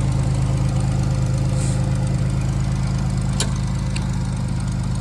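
Engine of a post-hole auger rig running steadily while it drills post holes, with a sharp click about three and a half seconds in and a fainter one just after.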